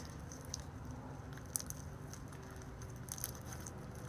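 Faint sticky clicks and squishes of hands kneading and stretching a slime with styrofoam chunks in it, as borax is worked in to make it less sticky.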